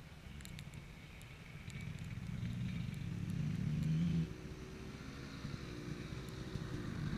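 Faint motorbike engine running, likely a dirt bike, with a low hum that grows louder over a few seconds and then drops off sharply about four seconds in. A few light ticks sound through it.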